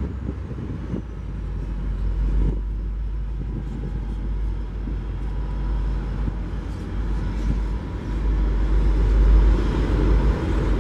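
Push-pull commuter rail train passing, with its diesel locomotive at the rear: a steady low rumble of engine and wheels on the rails.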